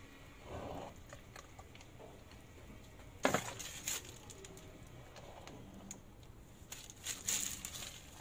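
Quiet kitchen handling sounds: a short rub about half a second in, a sharp knock with a brief rustle about three seconds in, and another cluster of knocks and rustling near the end, as a squeeze bottle is set down on a marble worktop and a piping bag is worked.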